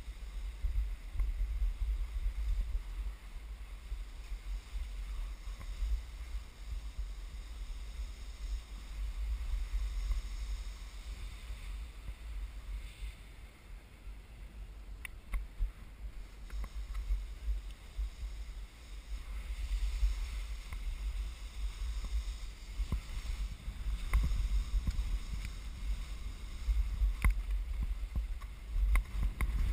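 Skis hissing and swishing through soft, slushy spring snow during a descent, with wind buffeting the microphone in a fluctuating low rumble. The sound eases off briefly about halfway through, and there are a few faint clicks.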